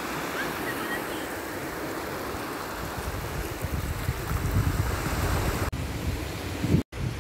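Sea surf washing over a flat sandy beach, a steady rush with wind gusting on the microphone. The sound breaks off briefly near the end.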